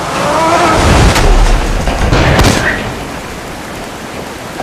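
Heavy cascade of water pouring and splashing, a steady rush with a deep rumble underneath that swells about a second in and eases off after about three seconds. A couple of sharp knocks cut through it.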